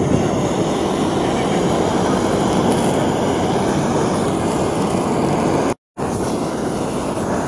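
Handheld kitchen blowtorch flame with a steady, loud rushing hiss as it sears slices of marbled beef. The sound breaks off completely for a split second just before six seconds in.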